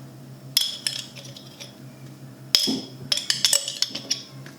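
Spoon clinking and scraping against a bowl while spices and paste are added to a marinade, in two quick bursts of clinks: one about half a second in and a longer one from about two and a half seconds.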